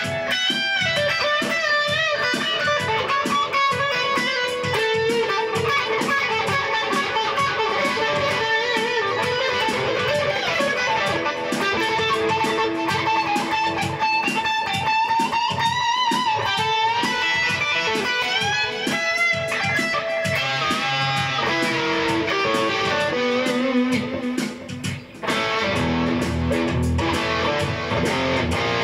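Rock music: an electric guitar plays a lead line with bent, wavering notes over a steady beat. About 24 seconds in the music briefly drops away, then comes back with heavier low chords.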